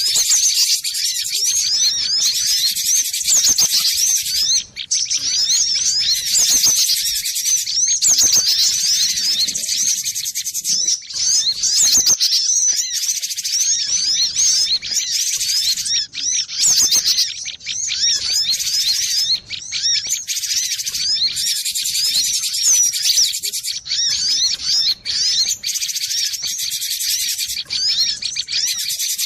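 Cinereous tit (gelatik batu) singing and calling: a dense, nearly continuous stream of quick, high chirps and twittering notes with only brief breaks.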